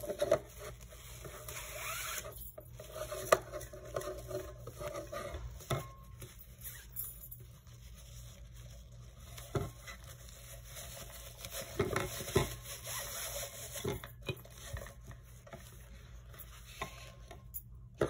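Handling noise of a ribbon being tied around a tin can: the fabric rubbing and rustling, with several sharp knocks as the can is moved on the tabletop.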